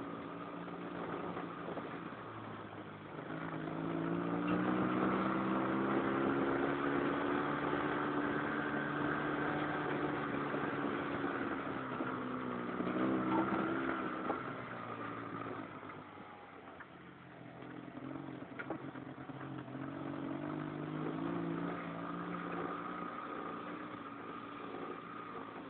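Saiting 650 dune buggy's engine running as it drives, picking up revs about three seconds in, easing off past the middle, then pulling up again.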